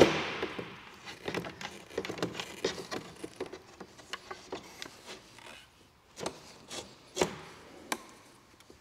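Black plastic collector pipe being pulled through a tight rubber grommet in a glass panel: handling noise of rubbing and scraping with scattered light clicks. It opens with one sharp knock with a short ringing tail, and a few separate knocks fall near the end.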